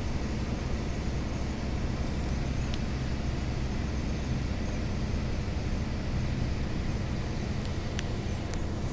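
Cabin noise inside a 2008 Gillig Phantom transit bus cruising at freeway speed: its Cummins ISL diesel runs at a steady drone mixed with tyre and road noise. A few faint rattling clicks come near the end.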